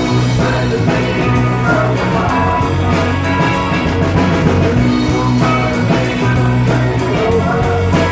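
Live rock band playing an instrumental passage: electric guitar and bass over a steady drum beat.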